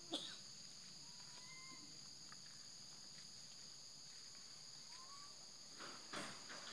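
Steady high-pitched insect chorus, with a sharp click just after the start and a few faint, short rising bird whistles. Louder, rougher noises begin near the end.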